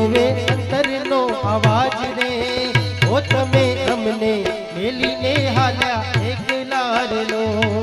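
Live bhajan accompaniment: harmonium, a plucked Indian banjo melody, tabla keeping a steady rhythm, and jingling manjira hand cymbals.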